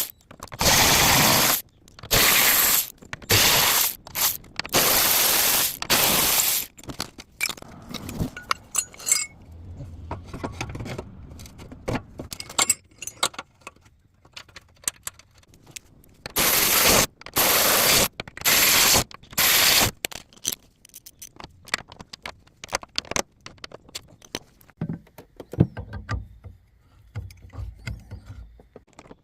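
Ratchet with a 10 mm socket working the nuts and bolts of the Land Rover LR4's spare tire carrier mount, in repeated clicking bursts of half a second to a second each. There are two runs of these bursts, one at the start and another about halfway through, with scattered metal clicks and scrapes of handling parts between them.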